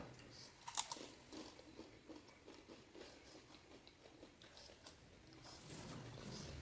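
Crisp panipuri shell crunching as it is bitten about a second in, followed by quiet, crackly chewing.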